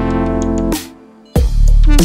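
Background music: a held synth chord that breaks off, then after a short gap a heavy bass beat drops in.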